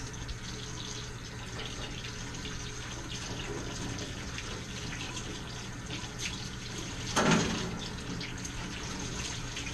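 Hose water spraying steadily onto a wet dog and into a stainless-steel grooming tub as the coat is rinsed, with a brief louder burst about seven seconds in.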